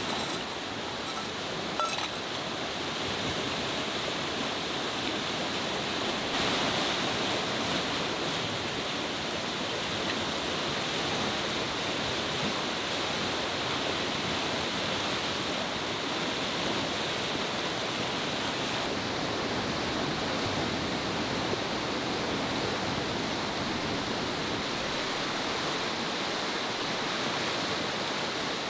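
Steady rush of a swollen, fast-flowing river, with a few light clinks of metal cookware in the first couple of seconds.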